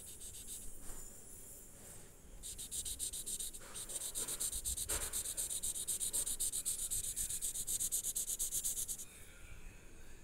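Paper blending stump scrubbing soft pastel on notebook paper in rapid back-and-forth strokes, several a second, to blend the colours. The scrubbing starts about two seconds in and stops about nine seconds in.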